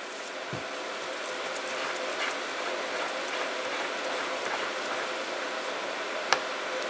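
Top of a 6.0L Powerstroke fuel injector being unscrewed by hand: faint handling of the metal body with a soft thump about half a second in and one sharp metallic click near the end, over a steady background hum.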